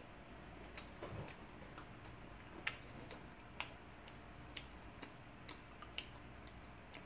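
Light, irregular clicks and ticks, about a dozen, with a soft low thump about a second in and the sharpest click near the middle.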